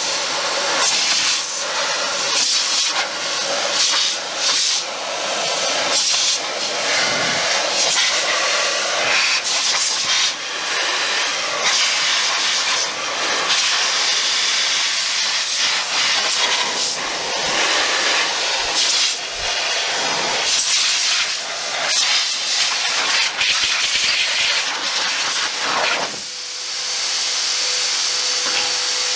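Adam's Air Cannon car dryer blasting air from its hose nozzle onto a wheel to blow off water: a loud rushing hiss that swells and dips as the nozzle moves around the wheel. A few seconds before the end the blast drops away and a steady whine holds.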